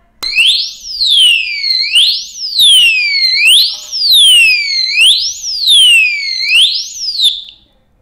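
Built-in tamper alarm of a motorcycle disc brake lock (LK603) set off by tampering. It is a loud electronic siren that sweeps up and down about five times, each a quick rise and a slower fall, and cuts off shortly before the end. A few light handling clicks of the lock sound underneath.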